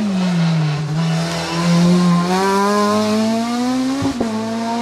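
Rally car engine pulling hard out of a slow corner, its note climbing steadily as it accelerates. A sharp crack comes about four seconds in.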